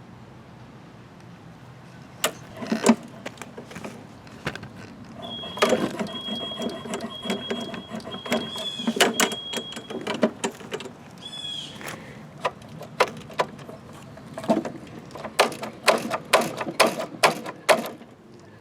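Hand work on a small lawn-mower engine: irregular clicks, knocks and clinks of metal parts and tools, with a thin high squeak in several short pieces around the middle and a quick run of sharp knocks near the end.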